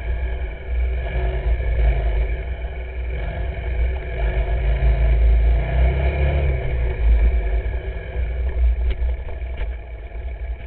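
A vehicle's engine running steadily as it drives along a dirt track, heard through a camera mounted on the vehicle, with a heavy low rumble. The sound eases off near the end, with a few sharp clicks.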